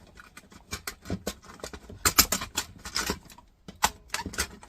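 Small metal parts clicking, clinking and knocking together as an aluminium piece and its little springs are worked off a dismantled docking station, with a dense flurry of clinks about two seconds in.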